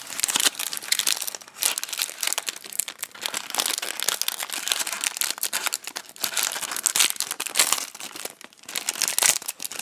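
Foil trading-card booster pack crinkling and tearing as it is ripped open by hand, a dense run of crackles throughout.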